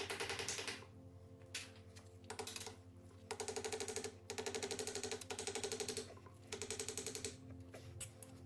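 A power wrench running in short bursts, about seven in a row, each a rapid mechanical rattle lasting under a second, as bolts are spun off the engine during teardown. Quiet background music runs underneath.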